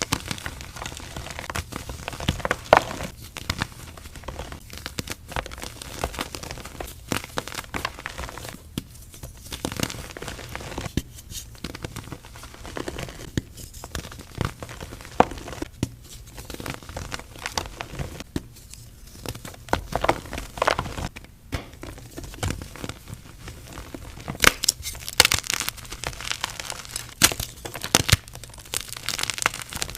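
Gym chalk being crushed: a continuous run of irregular crunches and crackles, louder and denser in the last few seconds.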